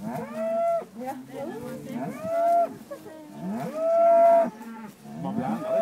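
Several dairy cows mooing, about four long calls in quick succession, some overlapping, each rising at the start and then holding a steady pitch.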